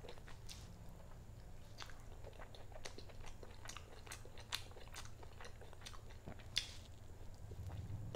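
Close-up mouth sounds of someone chewing chicken and rice: many small, sharp clicks, with one louder click about six and a half seconds in. A steady low hum runs underneath and grows louder near the end.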